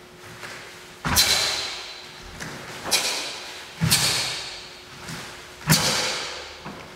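Sharp snaps and thuds of a solo taekwondo pattern: four strong strikes of uniform and bare feet on foam mats, roughly a second or two apart, each echoing in a large hall.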